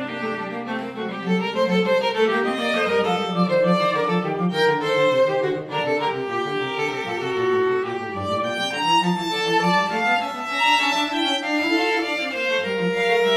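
String trio of violin, viola and cello playing together, several bowed lines moving at once, with a low note held for the first few seconds.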